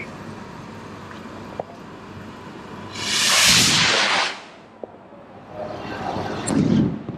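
Firework going off with a loud rushing hiss lasting about a second, followed about two seconds later by a second, softer rush of hiss.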